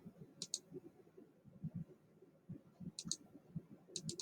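Computer mouse clicking: a quick double click about half a second in, another about three seconds in, and a short run of clicks near the end.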